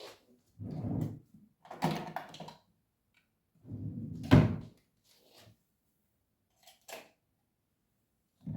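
Several thumps and knocks of household objects being handled, the sharpest and loudest about four and a half seconds in, with a couple of faint clicks later.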